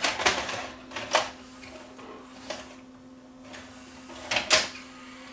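Panasonic PV4250 VCR's cassette-loading mechanism clicking and clunking in several separate bursts as the tape is moved through eject and load, over a steady low hum. The machine has just failed to eject its tape, a symptom of its faulty, stalling capstan motor.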